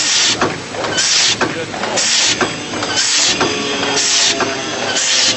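Japanese-style rotary dumpling machine running, with a short sharp hiss about once a second in time with its cycle, over the clatter and clicking of the mechanism.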